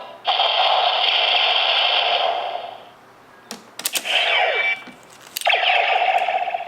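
DX Neo Decade Driver toy belt playing its electronic Final Attack Ride sound effects through its small built-in speaker: a long effect lasting over two seconds, then a few sharp plastic clicks as the belt is worked, a short effect falling in pitch, and another effect that starts about two-thirds of the way through.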